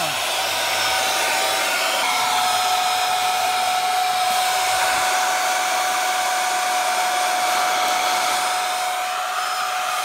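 Kitfort cordless stick vacuum running steadily on its crevice nozzle, sucking up crumbs: one steady high motor whine over a rushing airflow hiss.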